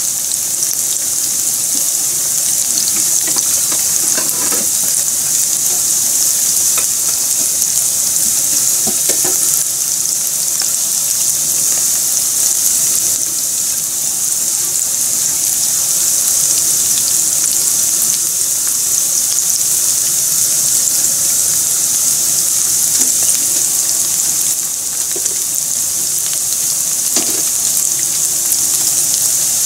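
Starch-coated chicken pieces deep-frying in hot oil: a steady high sizzle with scattered small crackles and pops.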